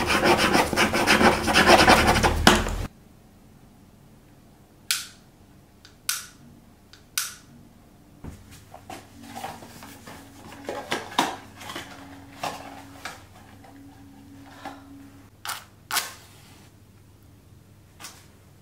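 A pen scribbling hard and fast across a paper calendar, cutting off suddenly after about three seconds. Then come scattered light taps and handling sounds, and near the end a sharp scrape with a short flare that fits a match being struck.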